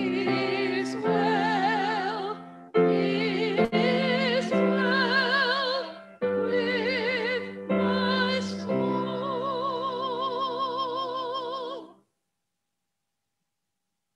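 Two women singing a duet with strong vibrato, in phrases of held notes. The last note is held for about three seconds and then cuts off sharply about twelve seconds in.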